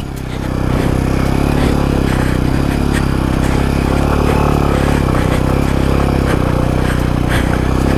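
Jawa 42 2.1 motorcycle's single-cylinder engine running steadily while the bike rides over a rocky dirt track, with scattered clatters and knocks from the stones and the bike.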